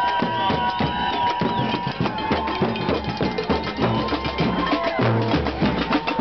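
A drum beaten by hand in a marching crowd: a quick, uneven run of hits over crowd noise, with a long held high tone through the first two seconds.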